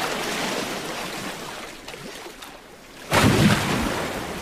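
Humpback whale slapping the sea with its long pectoral flipper: a churning splash and wash, then a sudden heavy slap and splash about three seconds in. Flipper-slapping like this carries far and signals the whale's position to other whales.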